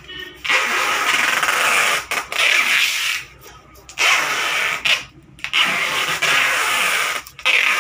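Large kitchen knife scraping along the skin of a big horse mackerel on a wooden chopping block, in several long rasping strokes of about a second each with brief pauses between them.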